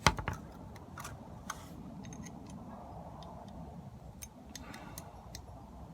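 Small metal parts and a hand tool clicking as four thin screws through the connectors of a metal rail are tightened down: one sharp click right at the start, then scattered light ticks.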